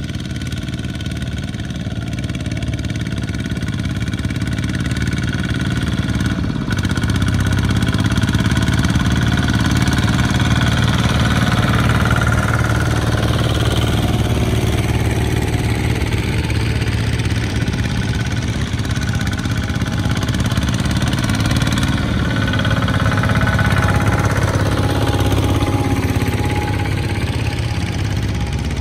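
Two-wheel walking tractors' single-cylinder diesel engines chugging as they haul loaded rice trailers through deep mud, getting louder as they approach, with a falling pitch twice as a tractor goes by close.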